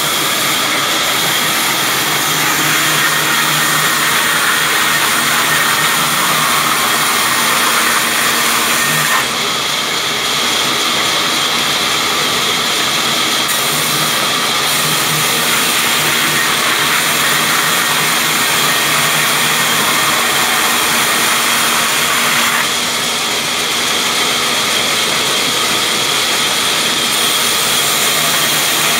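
Large sawmill band saw ripping a log lengthwise: the steady, loud hiss and whine of the blade cutting through the wood over the running motor, the sound shifting about nine seconds in and again about twenty-two seconds in.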